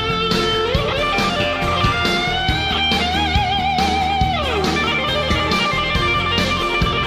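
Background music: an electric guitar lead playing held, wavering notes over a steady beat, with one note sliding down about four seconds in.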